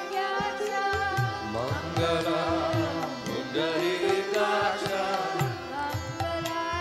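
Kirtan music: voices singing a devotional chant over harmonium, with a two-headed mridanga drum keeping the rhythm and a sitar.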